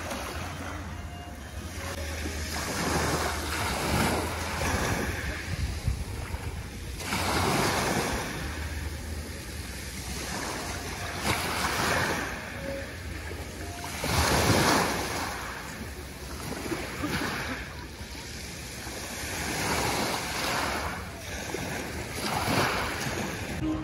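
Sea waves breaking and washing on the shore, one surge swelling and falling away every few seconds, over a low rumble of wind on the microphone.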